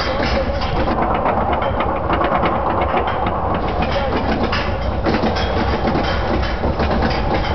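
Viper roller coaster's train being hauled up the lift hill by its chain: a steady mechanical rattle of rapid clacks over a continuous low rumble.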